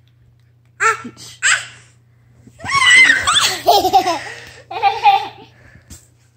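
Small children laughing and squealing: two short squeals about a second in, then a long burst of high-pitched giggling and a shorter one near the end, as an older child plays roughly with a baby.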